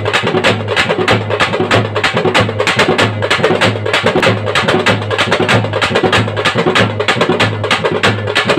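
Small drums played with sticks in fast, dense strokes over a bass drum beating steadily about twice a second: a loud drum troupe playing dance rhythm.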